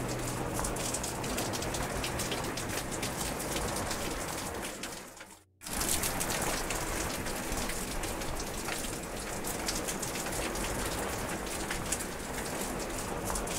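Steady rain falling, a dense hiss full of separate drop hits. About five seconds in it fades out to a brief silence, then cuts back in abruptly, as at a splice in the recording.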